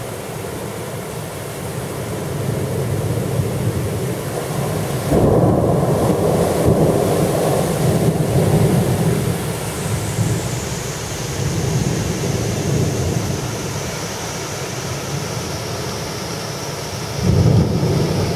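Thunder rolling over steady rain. A loud low peal breaks in about five seconds in and rumbles on for several seconds. Another starts suddenly near the end.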